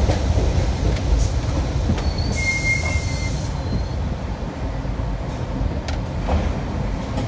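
Subway train slowing to a stop at a station: the low rumble of the wheels eases off. About two seconds in comes a short high brake squeal with a hiss over it, and a few sharp clicks are heard.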